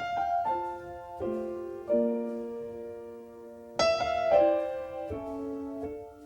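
Slow solo piano music: single notes and chords struck one after another and left to ring and fade, with a louder phrase starting about four seconds in.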